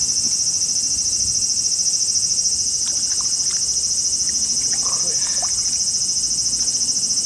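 Steady, high-pitched insect chorus, a loud unbroken buzz.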